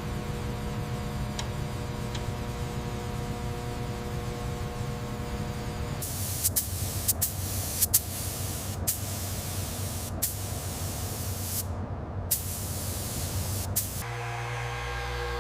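A steady machine hum, then a loud compressed-air spray hissing in long bursts broken by several short pauses. Music comes in near the end.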